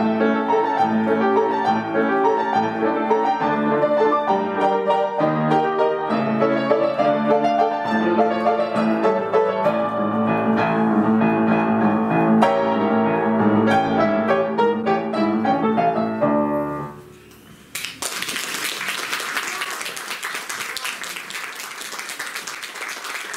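Piano music playing and ending about seventeen seconds in, followed by audience applause.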